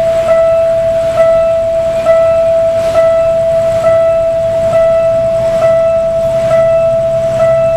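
Level-crossing warning bell ringing, one steady tone struck again a little faster than once a second, nine strikes in all. Underneath it, the low hum of the approaching GE diesel locomotive's engine grows louder over the last few seconds.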